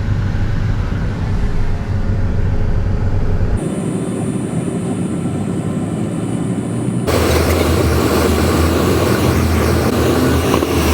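Steady engine and cabin noise from a small private jet, a low rumble with hiss. It changes abruptly twice, about three and a half and seven seconds in, and the middle stretch carries a thin high whine.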